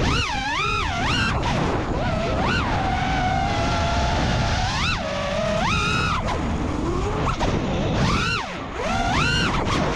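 Brushless motors and propellers of the HaloRC Osiris FPV quadcopter whining, the pitch sweeping sharply up and down again and again as the throttle is punched and chopped through fast snap maneuvers, over a rush of air noise.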